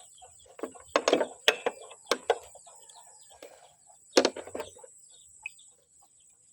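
Chickens clucking in the background amid a run of sharp clicks and knocks, bunched in the first couple of seconds and again about four seconds in.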